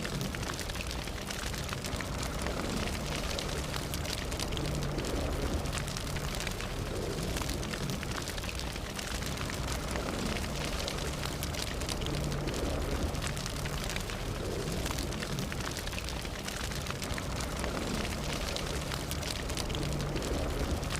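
Fire burning steadily: a low rumble of flames with frequent small crackles and pops.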